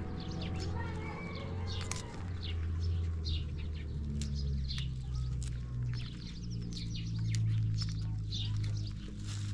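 Small birds chirping over and over, above a steady low droning hum whose pitch shifts about four seconds in. A few crisp snaps come from cauliflower florets being broken off by hand.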